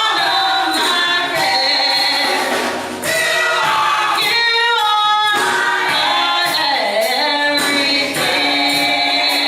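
Gospel choir singing, voices held in sustained notes with vibrato.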